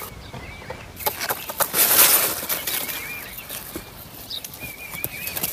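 A dog biting and tugging a cucumber off its vine: the leaves and stems rustle and snap in irregular crackles, loudest about two seconds in.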